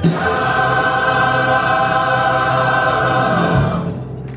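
Mixed chorus singing a final sustained chord together, held steady for about three and a half seconds and then released and dying away.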